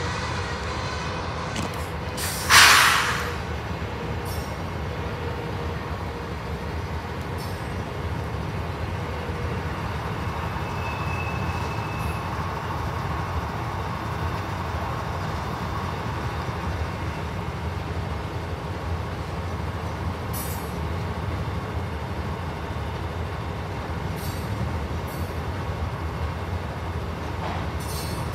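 Union Pacific diesel locomotives rolling slowly past with a steady low engine and wheel rumble. About two and a half seconds in there is a sudden loud hiss that dies away within a second. Later come a faint short squeal and a few light clicks.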